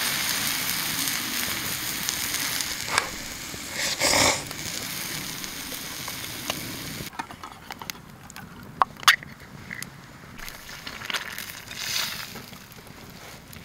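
Yakisoba noodles and vegetables sizzling in a small pan over a wood fire, with a couple of louder strokes as chopsticks stir them. About halfway through the sizzling cuts off, leaving a quieter background with scattered sharp clicks and crackles.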